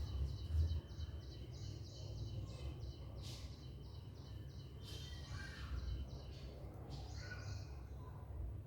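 Faint background bird chirping: a rapid run of short high chirps, about five a second, pausing partway and starting again, over a low steady hum. A single click sounds about three seconds in.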